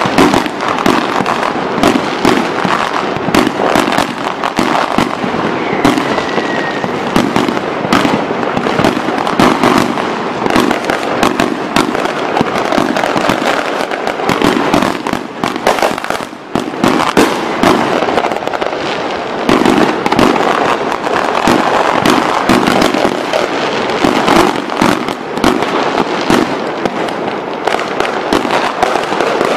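A dense barrage of aerial firework shells bursting one after another, with crackling between the bangs, in a near-continuous rapid stream that eases briefly a little past halfway.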